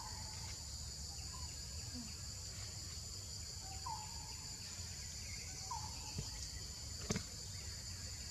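Steady insect chorus, a continuous high-pitched drone of crickets or cicadas, with a few short chirps recurring every couple of seconds over a low rumble. A sharp click comes about seven seconds in.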